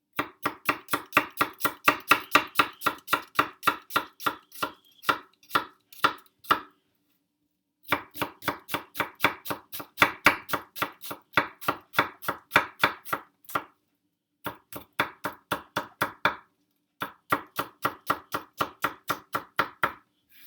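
Victorinox kitchen knife chopping rapidly on a cutting board, about four strokes a second, in several runs with short pauses between them.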